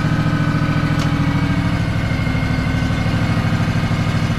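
Honda 16.5 hp twin-cylinder engine on a Craftsman DLT3000 lawn tractor running steadily on choke, moments after a restart, with an even firing rhythm.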